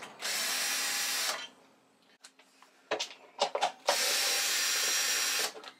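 Cordless drill-driver on slow speed spinning a socket on a cover screw in two runs, one just after the start and one about four seconds in. Between them come a few clicks and knocks from the drill being handled.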